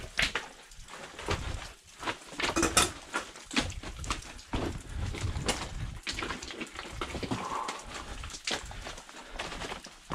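Footsteps of a hiker walking on a trail, a step roughly every second, the loudest a little under three seconds in, over a low rumble.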